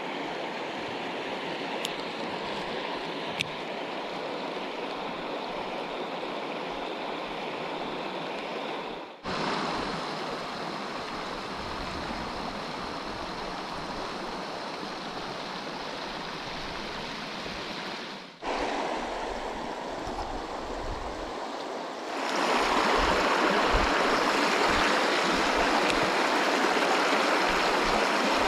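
Creek water running over rocks, a steady rushing and babbling. It breaks off abruptly twice and comes straight back, and grows louder about three-quarters of the way through.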